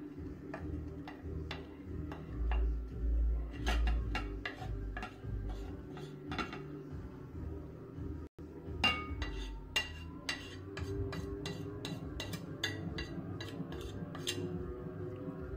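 Metal spoon tapping and scraping against a ceramic plate as flour is knocked off it into a bowl: a run of sharp clinks and clicks, thickest in two spells.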